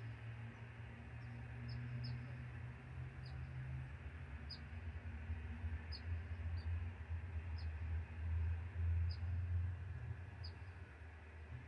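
Ocean surf and wind, a steady hiss over a low rumble that swells about six seconds in, with a small bird giving short high chirps about once a second throughout.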